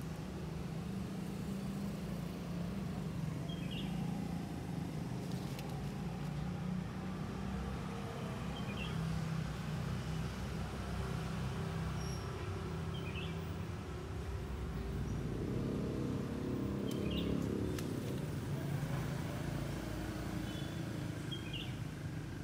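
Steady low motor rumble with a few faint, short high chirps every few seconds.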